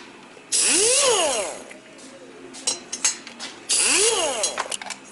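Valve seat grinder spinning a grinding stone against a valve seat in two short bursts of about a second each, the motor pitch rising and then falling each time. Light tool clicks between the bursts.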